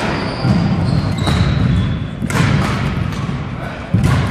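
Badminton rally: sharp racket strikes on the shuttlecock every second or so, the last one the loudest, with short high squeaks from sneakers on the wooden court floor, all echoing in a large gym hall.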